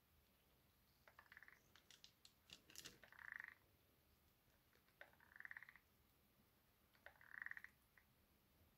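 Hot glue gun's trigger squeezed four times, about every two seconds; each squeeze gives a short, faint rattling creak as the feed pushes the glue stick through. A few light clicks come a little before the second squeeze.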